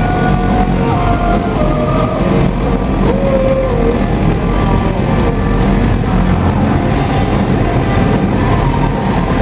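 Live rock band playing loud, with guitar, bass and drums. A lead line bends and slides in pitch over the first few seconds, and the cymbals brighten about seven seconds in.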